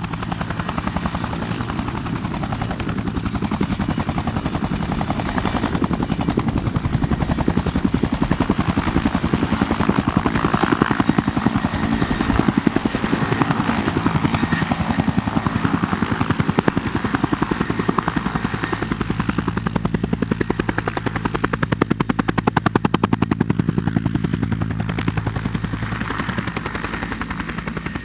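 Bell 212 helicopter, its two-bladed main rotor beating in a rapid steady chop over a low turbine drone, with a faint high whine early on. It grows louder toward the middle and eases off near the end.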